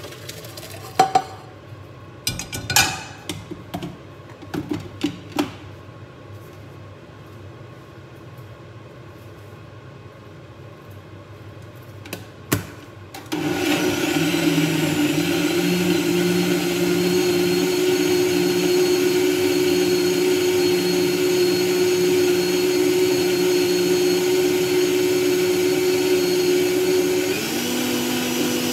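Countertop blender puréeing cooked asparagus and potato soup: after a few knocks and clinks as the soup is poured from the steel pot into the jug, the motor starts about halfway through and runs steadily, its pitch shifting near the end.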